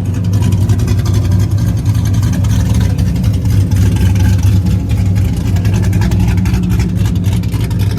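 A car engine running loudly at steady revs, a deep, even exhaust drone with a fine rattling crackle over it.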